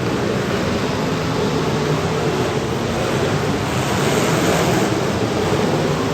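Several demolition derby cars' engines running together, heard as a steady, dense noise, growing a little brighter about four seconds in.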